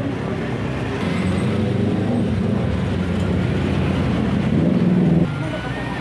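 A motor vehicle engine running close by in street traffic, a steady low hum that grows louder and then drops off suddenly about five seconds in.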